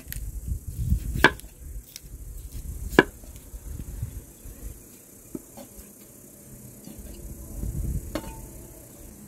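Kitchen knife slicing a raw potato on a wooden cutting board: a few sharp knocks as the blade hits the board, the loudest two about a second and a half apart, then softer cuts.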